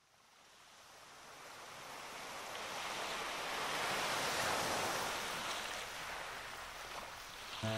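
Ocean surf: the wash of waves fading in from silence, swelling to a peak about halfway through and then easing off. Music begins right at the end.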